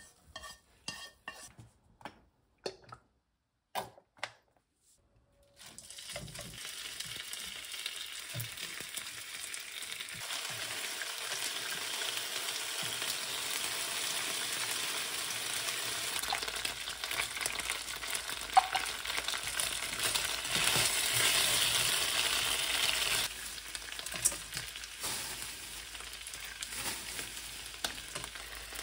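Slices of pork sizzling as they fry in a nonstick wok, a steady sizzle that grows stronger through the middle and eases near the end, with chopsticks turning the meat. At first, a few short clicks of chopsticks pushing stir-fried cabbage out of the pan.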